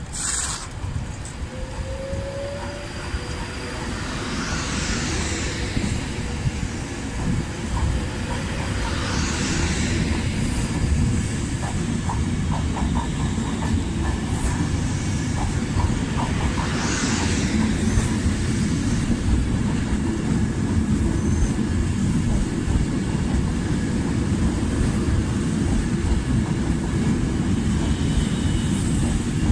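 Virgin Trains Class 390 Pendolino electric train running past close by: a steady low rumble that builds over the first ten seconds, with wheels clicking over rail joints in the middle and a few brief high hisses.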